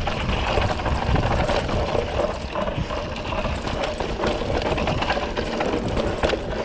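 Mountain bike rolling down a dirt trail: a steady rumble of tyres and wind on the microphone, with continuous rattling and clicking from the bike over rough ground.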